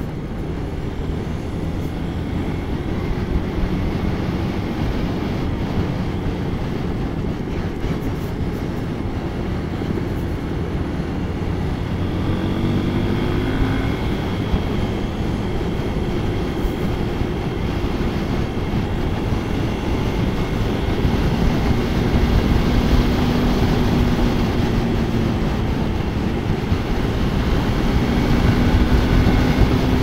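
Hero XPulse 200 4V motorcycle's single-cylinder engine running under way, its note rising and falling gently with speed, over a steady rush of wind and road noise on the microphone.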